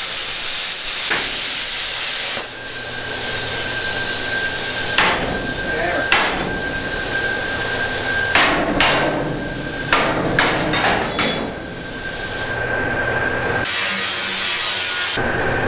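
Plasma cutter hissing steadily, with a thin high whine, as it cuts metal plate. It is then broken by several sharp sledgehammer blows on metal held in a vise, irregularly spaced, between about five and eleven seconds in.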